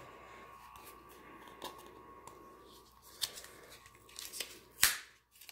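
Hands handling a new deck of oracle cards and working at the paper band around it: quiet rustling of card and paper with a few sharp clicks, the loudest about a second before the end.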